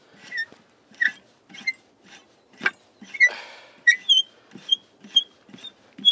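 Screw clamp of a metal rod holder being turned tight on an inflatable boat's bench, squeaking with each turn: a run of short squeaks, about two a second.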